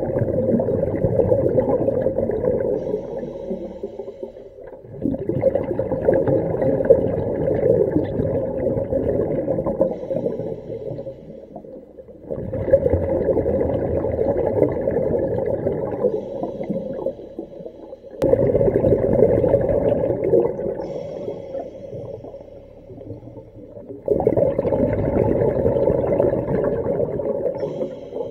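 Diver breathing underwater through the regulator of a DIY hookah rig: exhaled air bubbles out in a burst about every six seconds. Each burst starts suddenly and fades away over three or four seconds.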